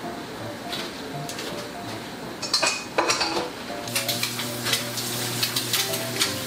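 Dishes and metal utensils clinking, then about four seconds in food starts sizzling in a hot pan with a steady low hum underneath.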